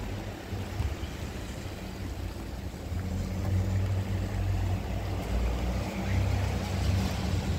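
City street ambience: a steady, uneven low rumble of traffic with a faint hiss over it.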